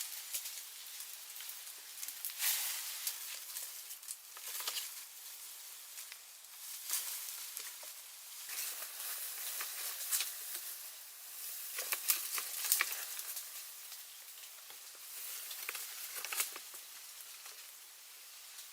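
Irregular rustling and crackling in bursts, with a few sharper snaps about twelve seconds in, as of dry sticks and leaves being handled.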